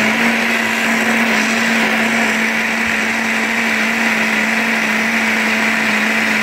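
Black+Decker countertop blender running at a steady speed, blending coconut pieces with water into coconut milk: a constant motor hum under the whir of the churning liquid.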